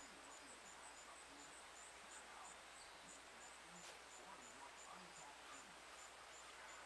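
Faint outdoor quiet with insects chirping high and steadily, about two chirps a second.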